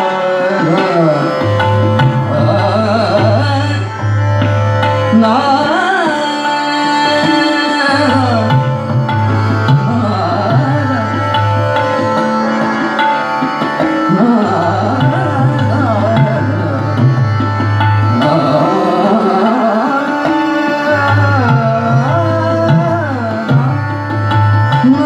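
Hindustani classical vocal music: a male singer sings long phrases that glide up and down in pitch, accompanied by tabla, with harmonium and a tanpura drone under the voice.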